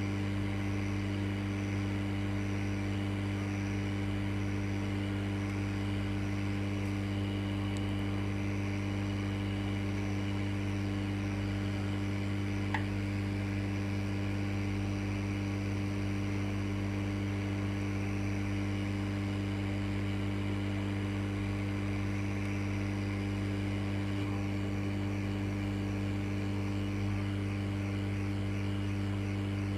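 Hot air rework station running steadily while it heats a replacement IC on an engine ECU board to reflow its solder: a constant electrical hum with an airflow hiss.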